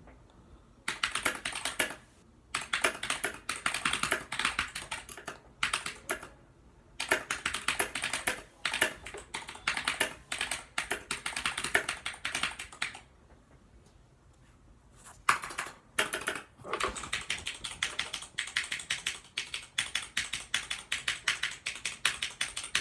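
Fast typing on a Razer mechanical keyboard: runs of rapid key clicks broken by short pauses, with a longer lull about two-thirds of the way through before the typing picks up again.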